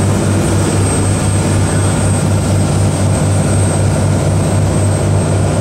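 A fishing boat's engine running steadily under way, a loud low drone with a slight regular pulse, over a hiss of wind and rushing water from the wake.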